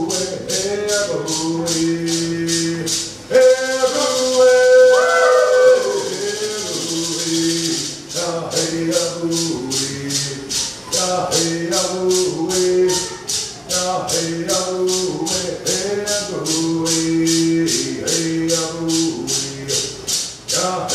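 Cherokee social dance song: singing over a hand rattle shaken in a steady beat, about three strokes a second. A few seconds in, the beat gives way to a continuous shaking of the rattle under a long held note, then the steady beat and singing return.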